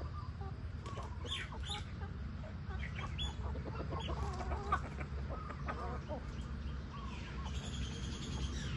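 Chickens clucking, many short calls from several birds overlapping, over a steady low rumble.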